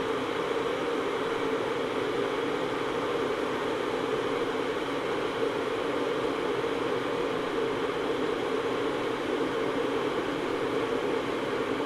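Electric kettle heating water: a steady, even rushing rumble.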